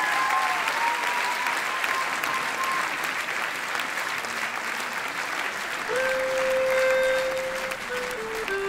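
Concert audience applauding and cheering. A held sung note trails off in the first few seconds, and steady musical notes come in about six seconds in.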